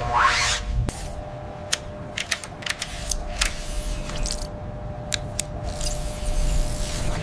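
Sound-designed robot mechanism: irregular small metallic clicks and ticks over a low steady hum and a faint steady tone. A short rising whoosh comes at the very start, and the clicks pause briefly a little past halfway.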